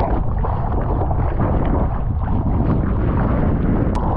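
Wind buffeting the microphone, a steady, loud rumbling noise.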